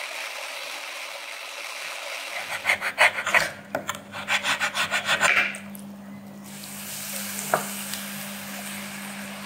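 A chef's knife shaving a block of palm sugar on a wooden cutting board: quick, rhythmic scraping strokes, several a second, from about two and a half to five and a half seconds in. Near the end, water poured into a pan runs steadily.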